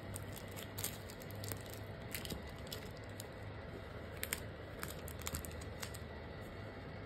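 Sticker sheets and a clear plastic keychain bag crinkling and rustling as they are handled and shuffled, with scattered short, sharp crackles over a faint steady low hum.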